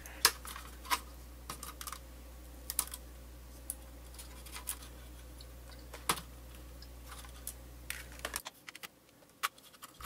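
Scattered small clicks and taps of plastic and metal as a laptop's internal speaker and its thin cable are pulled out of their routing in the open chassis. A faint low hum underneath cuts off suddenly near the end.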